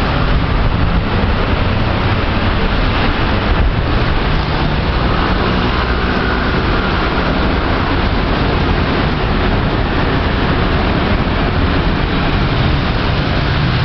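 Steady, loud traffic noise of a busy city street, with cars and buses passing.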